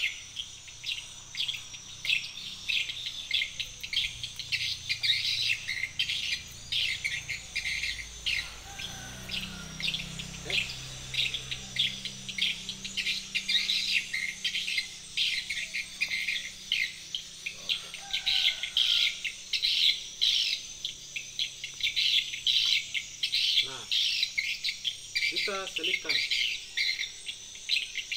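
Insects chirping in a dense, fast, unbroken pulse, with birds calling over it now and then.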